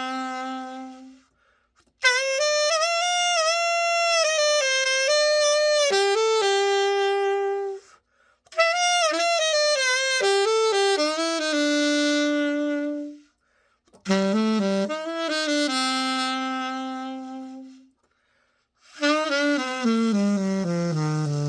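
Freshly overhauled Midway R54 alto saxophone being played solo in a play test: short melodic phrases, each ending on a held lower note, broken by brief silences; the last phrase steps down to low notes near the end.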